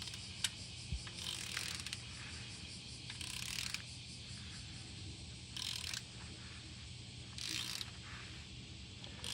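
Ratchet wrench worked in repeated strokes, a short rasping burst of clicking every one and a half to two seconds, over a steady low hum.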